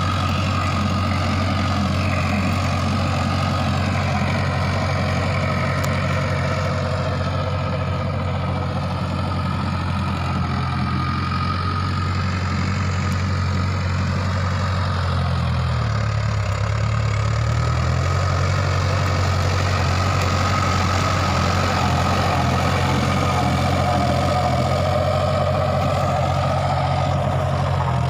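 Tractor diesel engine running steadily under load while pulling a rotary tiller through dry soil. Its pitch dips briefly about halfway through.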